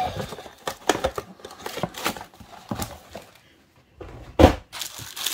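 Cardboard box insert being handled by hand, with short scraping and tapping noises of card against card. Then a single heavy thump about four and a half seconds in.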